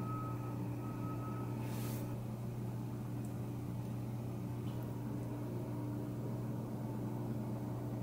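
Steady mechanical hum with a low drone and a faint whine over it, and a short hiss about two seconds in.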